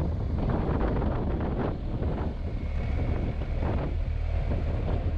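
Heavy wind noise buffeting the microphone of a moving motorcycle, over a steady low rumble.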